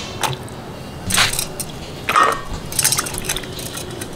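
Cut flat beans and potato slices being handled in a steel bowl of water, making a few short wet splashes and sloshes about a second apart.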